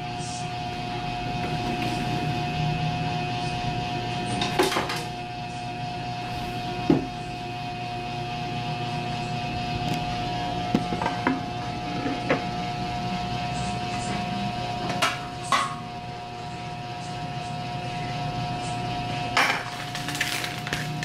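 Scattered knocks and clatters from handling rock-hard frozen food in a refrigerator freezer, a few sharp ones standing out, over a steady electrical hum.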